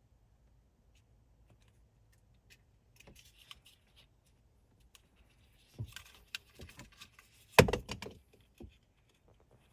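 Small plastic clicks and rattles of a wiring connector and its wires being handled, sparse at first, then a busy cluster of clicks about six seconds in with one sharp knock among them.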